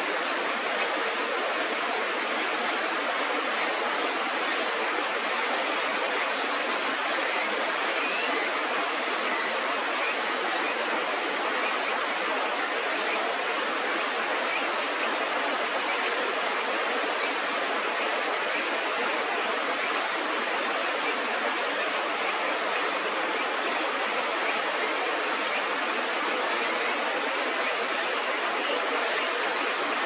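Steady rush of flowing river water, an even hiss with no breaks or changes, with a thin steady high tone above it.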